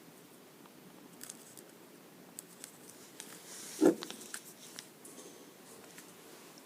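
Watch box and packaging being handled: small scattered clicks and rustles, with one louder knock about four seconds in, just after a brief rustle.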